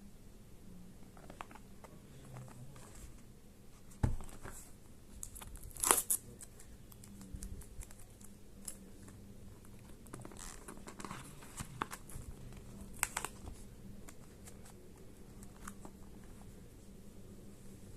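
Phone packaging being handled and opened by hand: scattered tearing and crinkling of the wrapping, with a sharp knock about four seconds in and the loudest tear or snap about two seconds later.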